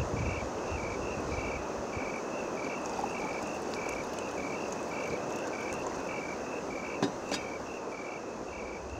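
Steady outdoor hiss with a regular high chirping that alternates between two close pitches about three times a second, like insects calling at dusk. Two sharp clicks about seven seconds in.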